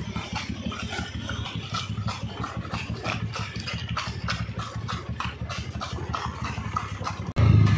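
A small engine running steadily with a quick pulsing beat, with scattered sharp clicks and knocks over it. Near the end it cuts abruptly to a louder, steadier engine sound.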